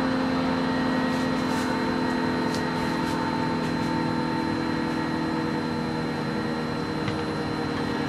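B&M 20-AR-10 twin-rotor warning siren sounding a steady chord of several tones, its pitch holding nearly level.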